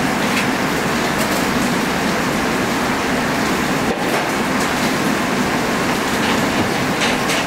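Steady roar of a busy commercial kitchen running, with a few faint knocks and clicks of utensils over it.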